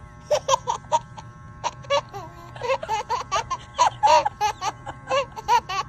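Baby laughing in a string of short giggles over the steady hum of electric hair clippers running at its head.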